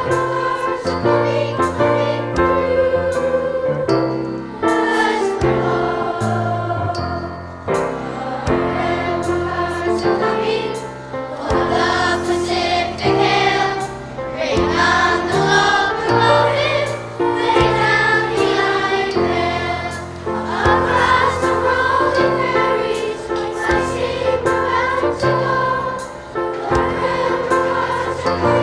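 Music: a choir singing a song over steady low accompaniment.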